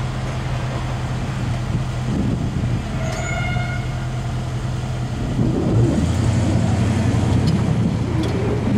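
Low, steady engine hum that gets louder and drops in pitch about five and a half seconds in, with a brief higher tone around three seconds in.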